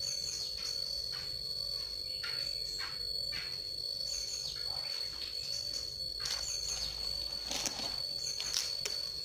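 Steady high-pitched insect trill, like a cricket, held at one pitch throughout, with short bird chirps scattered over it.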